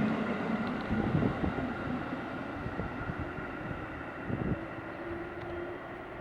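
Train running on the rails, a dense rumble with irregular clunks that fades gradually.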